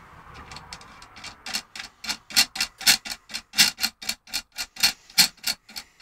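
Steel nut being run along a threaded rod by hand, giving a rapid metallic ticking about five times a second that grows louder after the first second or so.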